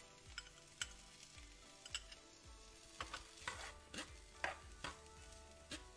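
A cooking utensil stirring onion, black beans and quinoa in an oiled frying pan, scraping and clicking against the pan at irregular moments over a faint sizzle.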